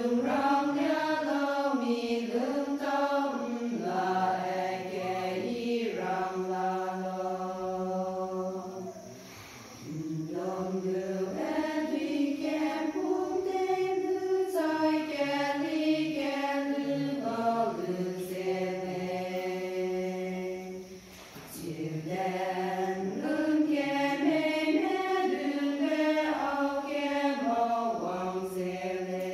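Women's choir singing together in long held phrases, with brief breaks about nine and twenty-one seconds in.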